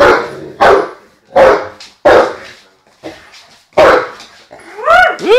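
Young Dogue de Bordeaux barking repeatedly in protest at a broom being swept, with deep barks about every 0.7 s and a short lull around the 3-second mark. Near the end he gives a higher, drawn-out cry that rises and then falls.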